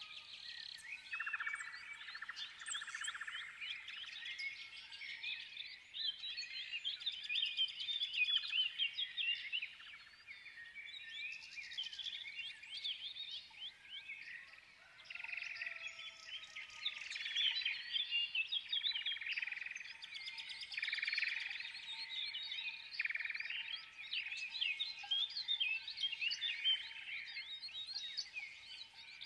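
Small songbirds chirping and twittering continuously, a dense stream of rapid short chirps.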